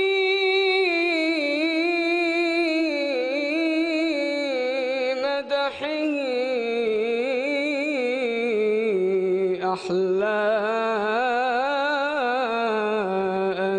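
A solo male voice sings an unaccompanied Islamic devotional song (inshad), stretching each syllable into long ornamented notes with a wavering melismatic line. He takes a short breath twice, about a third of the way through and again a few seconds later.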